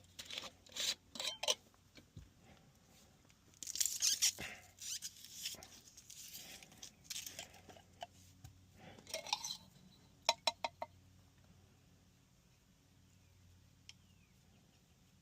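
Hands working on a PVC condensate drain trap and its union: irregular rustling, scraping and plastic clicks, with a quick run of four sharp clicks about ten seconds in. After that only a faint low hum remains.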